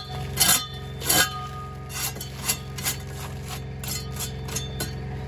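Irregular sharp metallic clinks and taps, about nine of them, as a steel bricklaying profile and hand tools are knocked and set against concrete blockwork. A steady low hum runs underneath.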